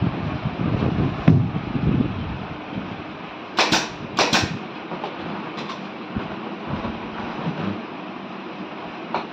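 Bumps and knocks from a salon chair being handled and assembled, with one sharp knock in the first couple of seconds. Near the middle come two short, sharp bursts of noise about half a second apart, then lighter scattered knocks.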